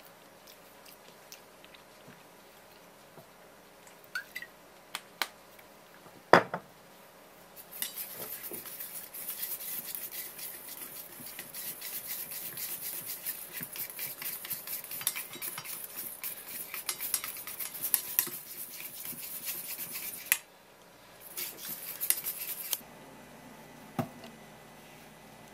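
Silicone spatula stirring and scraping a thick miso dressing around a stainless steel bowl: rapid continuous scraping strokes for about twelve seconds, then a shorter bout. A single sharp knock sounds about six seconds in, before the stirring starts.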